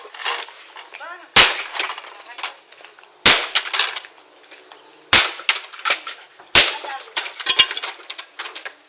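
Bonfire of burning wood and rubbish crackling, with four loud sharp bangs about two seconds apart and quicker small cracks in between.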